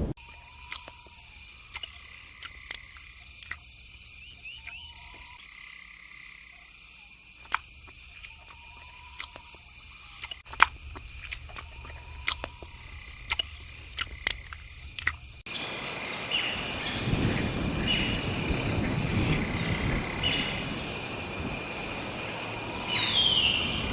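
Chorus of calling frogs and insects: a steady high trill with short calls repeating every couple of seconds and scattered clicks. About two-thirds of the way through, the sound switches abruptly to a louder, even hiss of ambience with chirping calls, and a falling whistle near the end.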